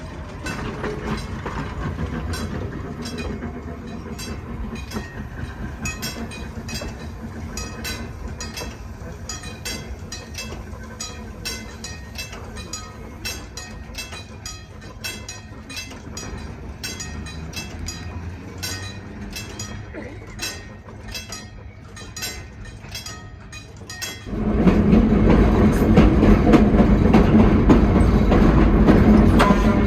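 Pacific Electric 'Blimp' interurban electric car #418 running on the track: a moderate rail rumble with about two sharp clicks a second. About 24 seconds in it turns suddenly into the much louder, steady running noise of the car heard from on board, with wheels clacking over the rails.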